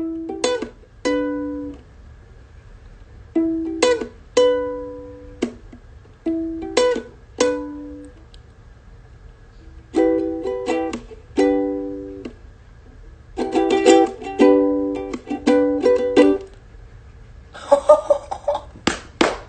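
Ukulele strummed in short, halting groups of chords, each group a few strums that ring out and fade, with brief pauses between groups: a player working out a song's chord changes by ear.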